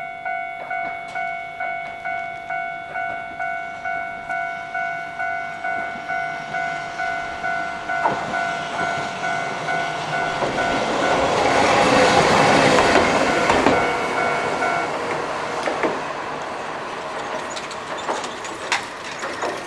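Level-crossing warning bell dinging steadily at about two strokes a second while a Hankai Tramway tram passes over the crossing. The tram's rumble swells to its loudest about twelve seconds in, with a few sharp clacks from the wheels on the rails. The bell stops about fifteen seconds in.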